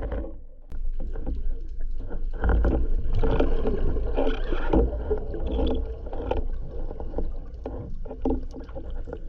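Water swirling and rushing against an underwater camera housing as a spearfisher swims, over a steady low rumble, with many small clicks and knocks and a sharper click about 0.7 s in.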